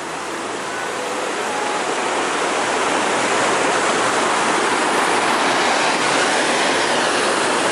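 Mountain waterfall and creek rushing over boulders: a steady, dense rush of water that grows louder over the first few seconds and then holds.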